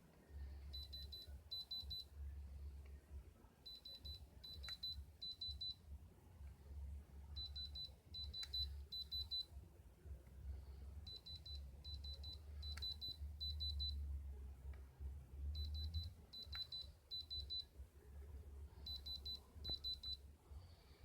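Electronic beeping: short trains of rapid high-pitched beeps, in clusters of two to four, repeating about every three and a half seconds over a low rumble, with an occasional sharp click.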